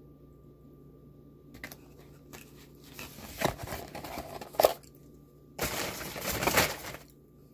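Paper fast-food packaging crinkling and being handled close to the microphone: scattered rustles, a sharp click about four and a half seconds in, then a louder, dense burst of crinkling that stops about a second before the end.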